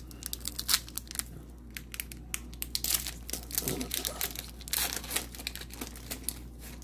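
Plastic packaging being crinkled and handled, a quick run of many small, irregular crackles.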